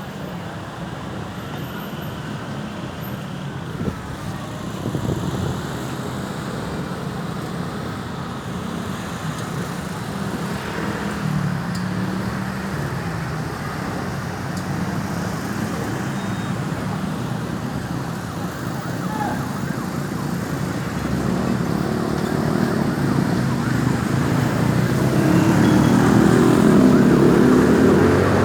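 Road traffic noise with an ambulance siren sounding, getting louder near the end.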